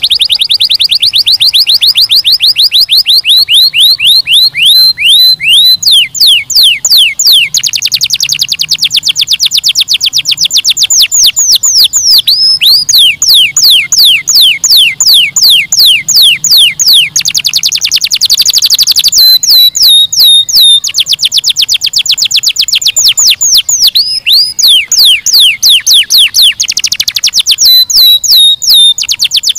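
Domestic canary singing a long, loud song made of rapid trills: each trill is the same high note repeated very fast, many times a second, and the song switches from one trill to the next every few seconds with only brief breaks.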